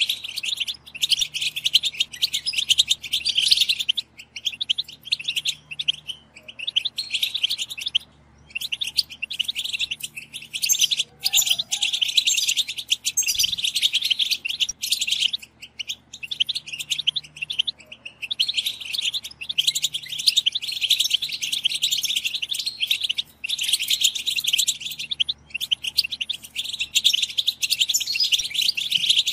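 Several European goldfinches calling together in a rapid, dense chatter of short chirping 'btbta' notes. The chatter runs in long stretches broken by brief pauses. It is the excited group call that goldfinch keepers play to stir male goldfinches into song.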